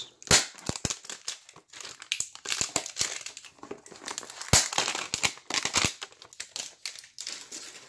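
A cardboard trading-card hanger box being handled and torn open: irregular crinkling and tearing of the packaging, with scattered sharp clicks and snaps.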